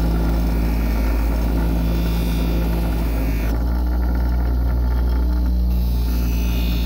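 Bench grinder motor running steadily with an even hum while a hoof knife is honed against its pasted felt wheel.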